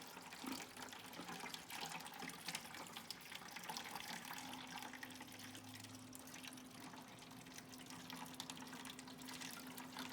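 Water trickling and dripping faintly in a Xiaomi Smartmi Air Humidifier 2, with a faint steady hum joining about four seconds in.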